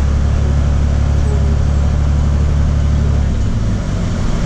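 Bus engine and road noise heard from inside the cabin while driving: a steady low engine drone under a rushing hiss. The engine note shifts about three seconds in.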